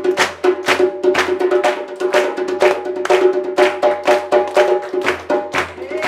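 Djembe played with bare hands in a quick, even rhythm of about three to four strokes a second, the drum's ringing tone sounding under the slaps, with hand-clapping along.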